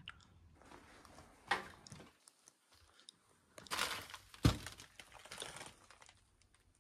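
Scattered crunching and cracking of debris underfoot, with one sharp crack about four and a half seconds in.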